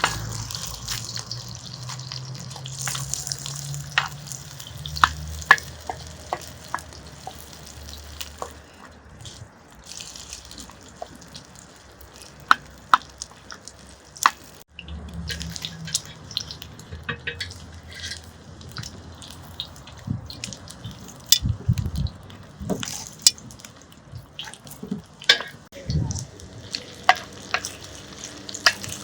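Food sizzling in a pan, with many sharp clicks of a utensil stirring and scraping. A low hum comes and goes, in the first few seconds and again around the middle.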